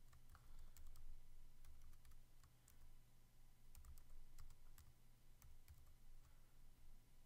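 Faint typing on a computer keyboard: irregular key clicks while a short title is typed, over a low steady hum.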